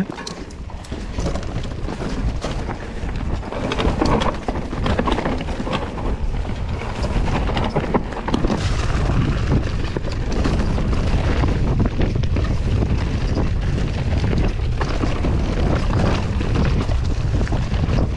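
Mountain bike running down a dirt trail: constant wind rumble on the microphone, with tyre noise and a steady stream of knocks and rattles from bumps.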